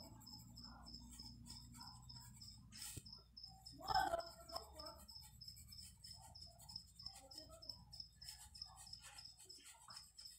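An insect chirping steadily in the background, short high chirps at about four a second, with a brief louder sound about four seconds in.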